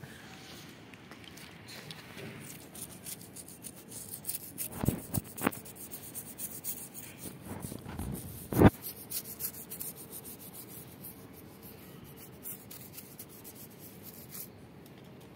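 A toothbrush dipped in diluted vinegar scrubbing a red-eared slider's shell, in quick scratchy strokes. A few sharp knocks cut through, the loudest about nine seconds in.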